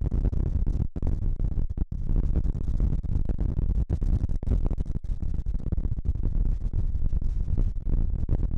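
Strong mountain wind buffeting the microphone: a loud, gusting low rumble that cuts out for an instant now and then.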